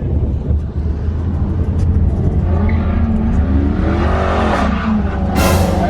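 Car engine running with a steady low rumble, revving up with a rising pitch around the middle, then a short burst of harsh noise near the end.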